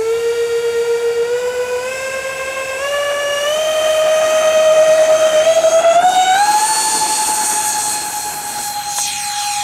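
Twin electric ducted fans of a Freewing Su-35S model jet whining as the throttle is opened in steps for the takeoff roll. The pitch climbs in several jumps, makes a last step up about two-thirds of the way through, then holds high and steady.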